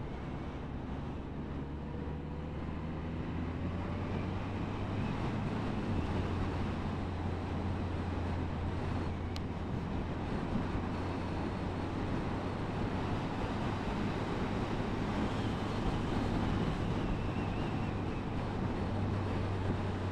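Suzuki GSF1250 Bandit's inline-four engine running steadily under way, its note stepping up slightly a few seconds in, with wind and road noise rushing over the microphone.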